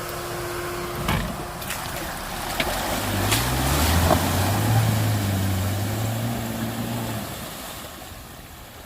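Small off-road 4x4 engine revving up as it pushes through mud and water, with splashing and a few knocks. The engine note rises about three seconds in, holds, then dies away near the end.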